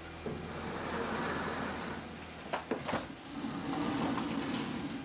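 Freestanding gas range being slid across the floor, a steady scraping and grinding with two sharp knocks about two and a half seconds in.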